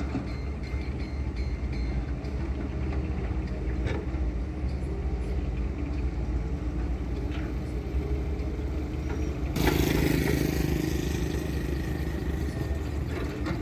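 Steady low rumble of diesel excavators and a dump truck working at a distance, with a few faint ticks near the start. About ten seconds in, a sudden louder rush sets in and holds for about three seconds before easing.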